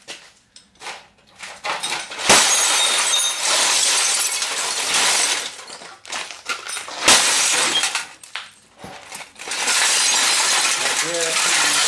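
Glass breaking and shattering as a CRT television is smashed apart, with two sharp blows standing out, about two and seven seconds in, amid crunching, scattering glass.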